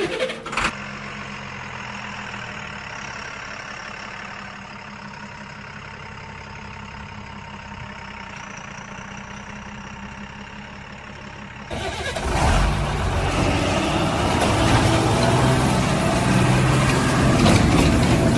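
Heavy diesel engine running steadily at idle, then, about twelve seconds in, an abrupt switch to a louder, rougher engine sound that carries on to the end.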